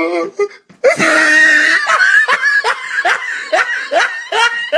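Meme sound-effect clip of hard, high-pitched laughter: a wheezy burst about a second in, then a run of short rising "ha"s, about three a second.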